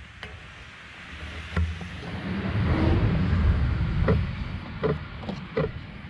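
Several sharp metallic clinks, each with a short ring, as steel gas pipe fittings are handled and turned by hand at a gas meter outlet. A rumbling rush of wind on the microphone swells in the middle and then fades.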